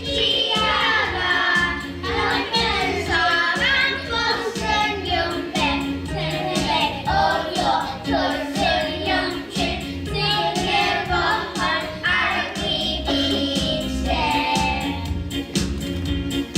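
A group of young children singing a song together over instrumental accompaniment with a steady beat.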